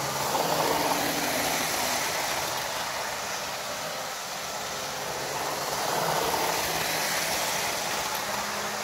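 Hornby OO-gauge Class 91 model train running on its track: electric motor hum and wheels rattling over the rails. It swells louder as the train passes close by, about a second in and again around six seconds in.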